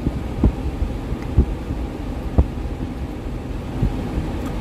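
Steady low rumble with three soft thumps about a second apart, as plastic food containers are handled.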